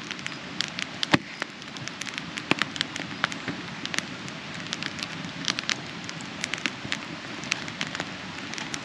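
Campfire crackling, with sharp irregular pops several times a second over a steady hiss, as magazine pages burn in it.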